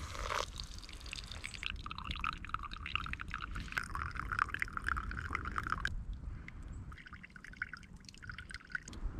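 Hot coffee poured from a metal pot into a birch bark funnel and trickling out of it into a wooden cup, a steady splashing trickle that thins and breaks up after about six seconds.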